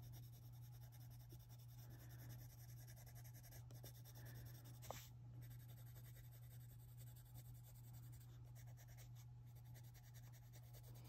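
Faint scratching of a Koh-i-Noor Polycolor coloured pencil shading on coloring-book paper, over a steady low hum.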